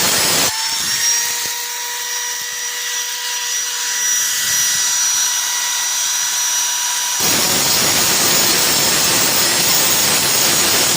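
Power tool grinding a lawnmower's steel cutting blade to sharpen it: rough grinding noise, easing about half a second in to a steady high whine as the tool runs with lighter contact, then grinding hard again from about seven seconds in.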